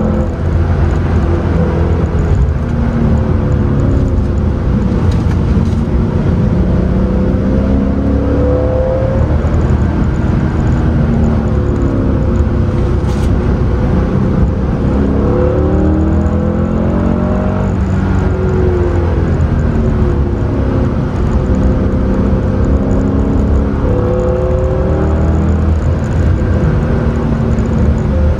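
Mercedes C63 AMG's V8 heard from inside the cabin under hard driving, its pitch rising under acceleration and dropping back again and again as the car works through the gears.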